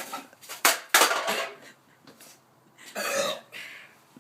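A sharp click followed by a loud hissing rush, then about three seconds in a short throaty burst from a person choking on soda while shotgunning a can.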